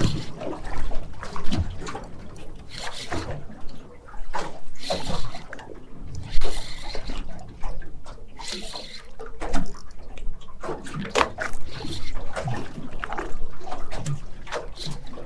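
Water sloshing and splashing against a boat at sea, with irregular knocks and clatter.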